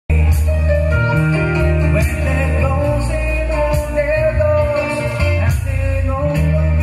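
Live band playing a song, a singer's voice carrying the melody over electric guitar, keyboard and a heavy bass line.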